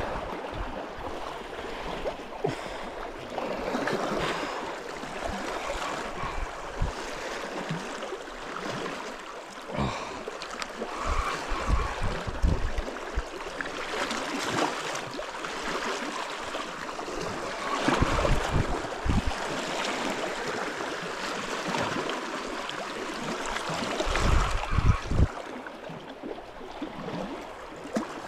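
Sea water washing and splashing against shore rocks, a steady rushing hiss, with occasional low bumps on the microphone.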